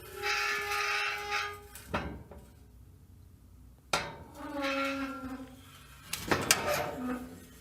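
Metal gate hinges creaking and squeaking in drawn-out squeals as the gate swings, some falling in pitch. A metal clank comes about two seconds in and another about four seconds in, and a cluster of clangs near the end.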